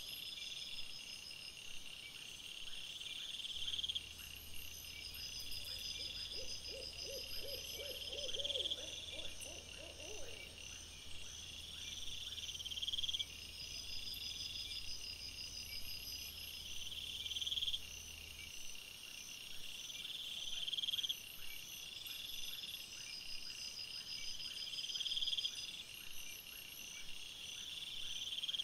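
Night-time woodland chorus of high, steady trilling calls from small animals, repeating throughout, with a short run of lower pulsed hoot-like calls from about six to ten seconds in. A low hum runs underneath from about four to eighteen seconds in.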